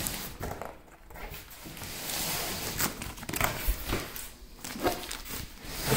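Cardboard box being opened by hand: flaps scraping and rustling, with scattered knocks and clicks, and a longer stretch of rustling about two seconds in, with some crinkling of the plastic wrap around the toilet inside.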